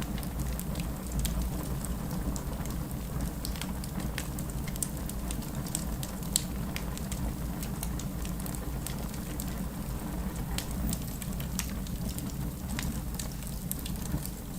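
Wood fire burning in a fireplace: a steady low rumble of the flames with frequent irregular crackles and snaps, and one louder pop about six seconds in.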